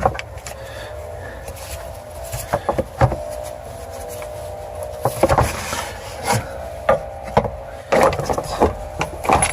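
Irregular clicks, knocks and scraping from the new air filter being pushed into its plastic airbox and the housing's tabs being pressed to lock it, over a steady hum.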